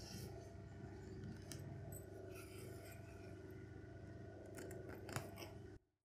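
Tailor's sewing machine running slowly while embroidering, its needle mechanism clicking steadily with a few sharper clicks. The sound cuts off suddenly near the end.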